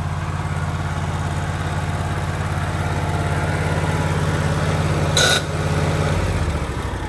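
Generac Ultra Source 15,000-watt portable generator's engine running steadily at a constant speed. After a brief noise about five seconds in, it is switched off: the note drops and the engine begins winding down near the end.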